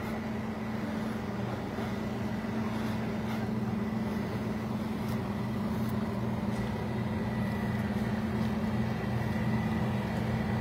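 Steady low engine hum of idling emergency vehicles, growing slightly louder toward the end.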